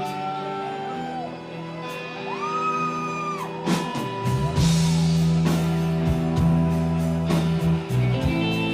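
Live rock band playing a song's instrumental intro on guitars, with bass and drums coming in about halfway through.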